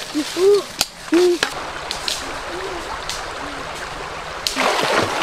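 A few sharp clicks of dry sticks being picked up, under short low calls that each rise and fall in pitch and repeat several times. About four and a half seconds in, the steady rush of a shallow rocky stream comes in.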